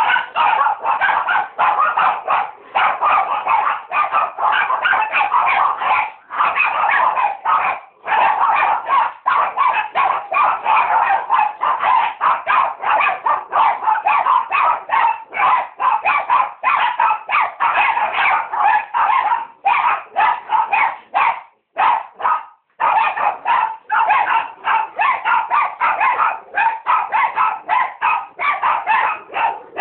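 Small pet dogs barking rapidly and almost without pause, excited about going for a walk. The barking breaks off briefly about seven seconds in and again about twenty-two seconds in.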